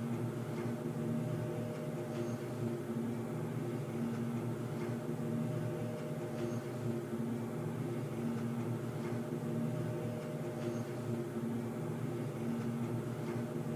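Underground ambience: a steady low mechanical hum with several held tones that swell and fade slowly, and faint high ticks every couple of seconds.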